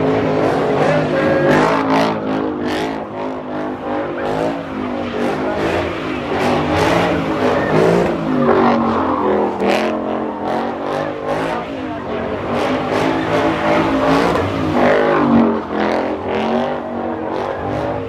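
Car engine revving hard, its pitch rising and falling over and over, with tyres squealing as the car spins donuts in a burnout. A crowd is shouting around it.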